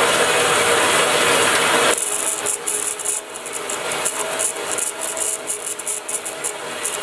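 Harbor Freight horizontal band saw running, its blade cutting through steel bar stock with a steady rasping. A louder, hissier stretch lasts about the first two seconds and then drops off abruptly.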